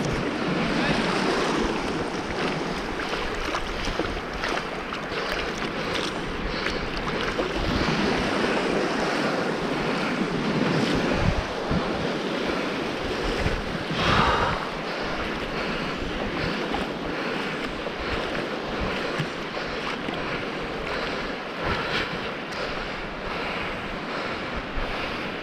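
Sea waves breaking and washing on a mixed sand-and-shingle beach, a steady rush of surf with wind buffeting the microphone; one louder surge comes about halfway through.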